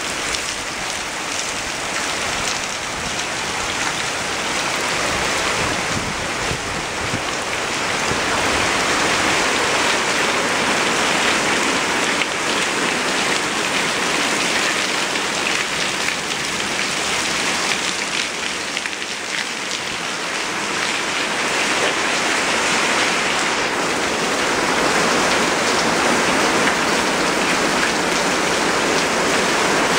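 Heavy rain pouring down onto stone pavers, rocks and garden plants: a steady, dense hiss that swells a little about a third of the way in and again toward the end.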